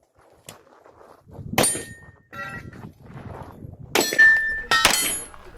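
9mm Glock 17 pistol shots, a few spaced out with pauses, each followed by steel targets clanging and ringing. The clearest shot comes about a second and a half in, then a quick group of shots near the end with a plate ringing for about half a second.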